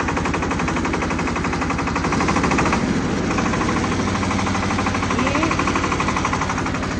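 Shifeng minitractor's diesel engine running under way, a fast, even chugging beat heard from the driver's seat; the beat briefly changes about three seconds in before settling again.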